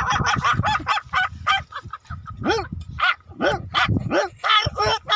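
Small dog yapping: a quick run of high-pitched yips for the first couple of seconds, then single yips spaced about half a second apart.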